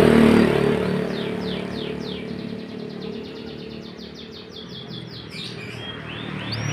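Canary singing a rapid trill of repeated falling notes, followed by a few separate higher notes near the end. A passing motor vehicle's engine hum fades out over the first few seconds.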